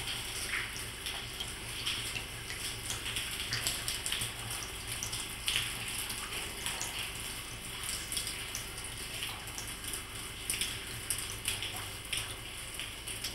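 Water dripping and trickling into shallow puddles on a stone floor: a steady running hiss with irregular drips falling throughout.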